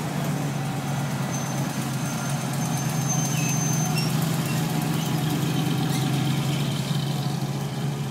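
Hot rod engine in a 1930s Ford two-door sedan, idling steadily with an even low note and no revving as the car rolls away slowly.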